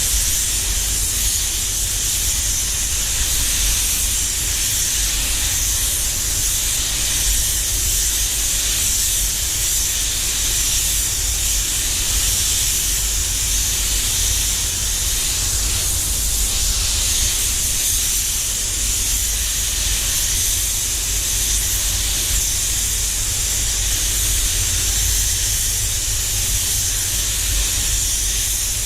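Air spray gun hissing steadily as it sprays a coat of automotive paint, with a low steady rumble underneath.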